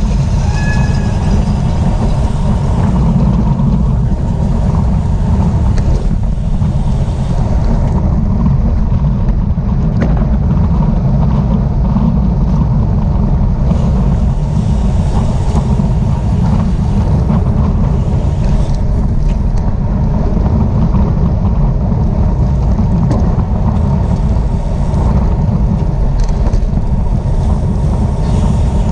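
Wind buffeting a bike-mounted camera's microphone while the rider races, a loud, steady rushing rumble.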